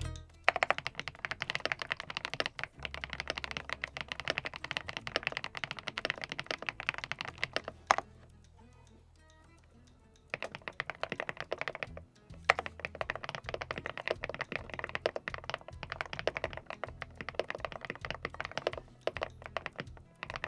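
Fast typing on an Aula F108 Pro full-size mechanical keyboard: a quick, dense run of key clacks that stops for about two seconds in the middle, then resumes. Faint low background music sits underneath.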